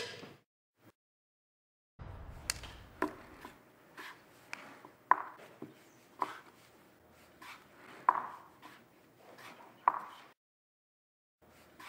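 Wooden Staunton-style chess pieces being set down on a wooden chessboard: about ten sharp clicks and knocks, irregularly spaced half a second to a second apart. They start about two seconds in and stop shortly before the end.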